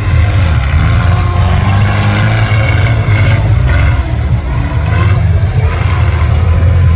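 Small racing tractor's engine running loud and steady under load as it drives up a dirt mound on a muddy track.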